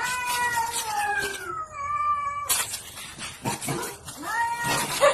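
Cats in a standoff yowling: long, drawn-out, wavering cries. A sudden harsh burst comes about halfway through, and another rising yowl near the end.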